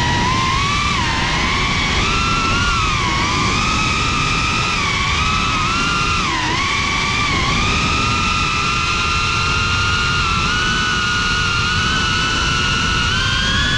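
Motors and propellers of a GEPRC Cinelog 35 3.5-inch ducted cinewhoop drone whining in flight, the pitch rising and dipping with the throttle. Brief dips come about one, three and six and a half seconds in, then the pitch climbs slowly through the second half.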